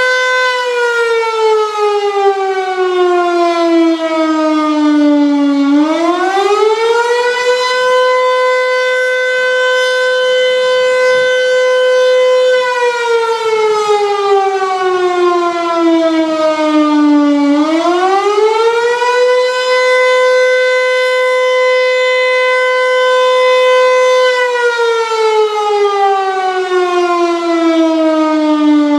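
French public warning siren sounding its monthly first-Wednesday test: one wailing tone that holds high, sinks slowly over about five seconds, climbs back within a couple of seconds and holds again, repeating about every twelve seconds.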